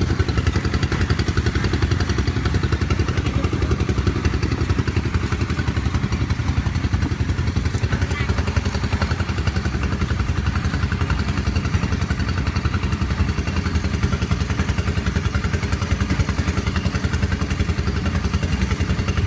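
A small engine running at a steady speed with a fast, even chugging that does not change.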